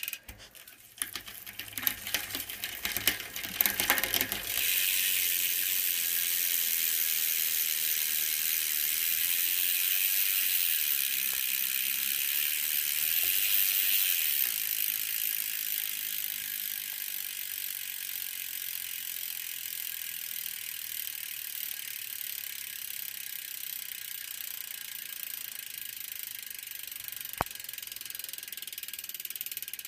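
A 2014 NS Rotary rear cassette hub freewheeling. It gives separate, uneven clicks for the first few seconds, then settles into a continuous buzz of rapid clicking that slowly fades as the wheel coasts down. There is one sharp click near the end.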